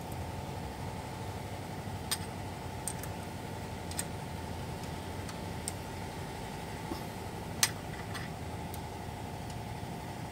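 About six sharp metallic clicks as the alternator and its mounting bracket are handled and fitted during a fan belt change, the loudest near the end. Under them runs a steady low mechanical hum.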